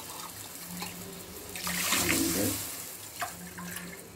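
Water being poured from a tumbler into a kadai of melted sugar and ghee, splashing, loudest about two seconds in, then tapering off.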